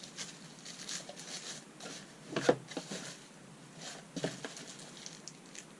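Handling noise from unpacking a clamp-on power strip: rustling and scattered light knocks, with a sharper knock about two and a half seconds in and another just past four seconds.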